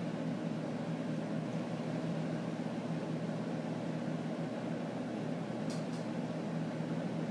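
Steady machine hum with a background hiss, even in level throughout. Two faint clicks come close together about six seconds in.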